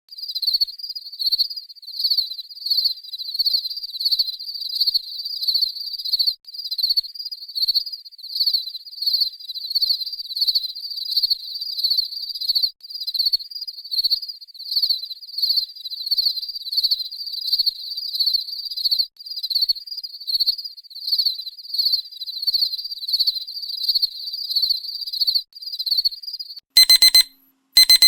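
Crickets chirping in a steady, rhythmic pattern of high chirps. Near the end the chirping stops and an electronic alarm starts beeping, two loud beeps with a short gap.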